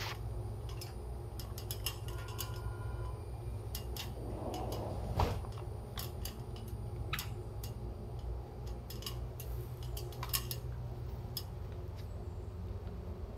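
Irregular light clicks and clanks of a man climbing an aluminium ladder and handling the bottle on a queen palm's flower stalk, with one louder knock a little over five seconds in, over a steady low rumble.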